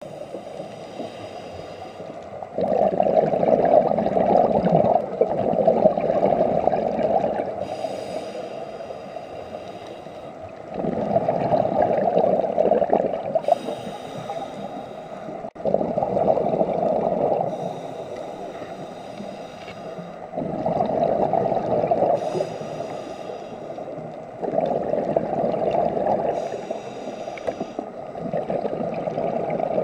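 Scuba diver breathing through a regulator: long stretches of exhaled bubbles, each a few seconds, alternating with short hissing inhalations, about one breath every five seconds.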